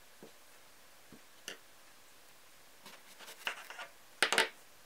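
Kitchen knife cutting through an eggplant on a cutting board: a few faint knocks as the eggplant is handled, then a run of crisp cuts about three seconds in, and the loudest crunchy slice with the blade meeting the board near the end.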